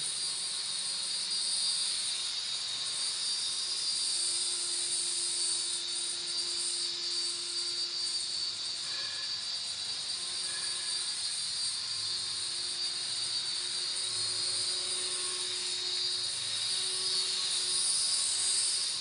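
Infrared-controlled toy helicopter inside a spherical plastic cage, its tiny rotors making a steady high-pitched whir. The whir gets louder near the end as it flies close.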